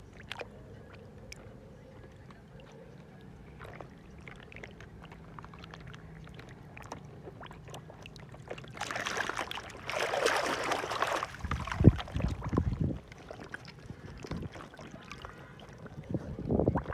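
A hand sloshing and splashing through shallow muddy water, with a louder spell of splashing about nine seconds in and a few low thumps after it.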